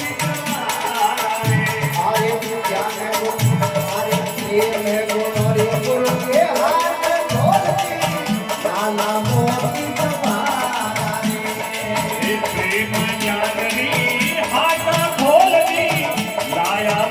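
Rajasthani folk devotional bhajan: a voice singing a melodic line over steady rattling, jingling percussion, with a low drum stroke about every two seconds.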